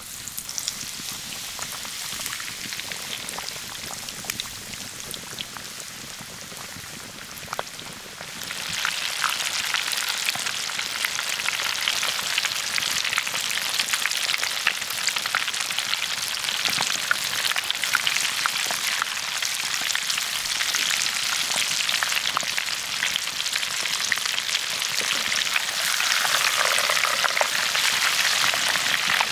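Breaded steak deep-frying in hot oil in a cast-iron pot, just laid into the oil: steady sizzling with many small pops. It gets louder about eight seconds in.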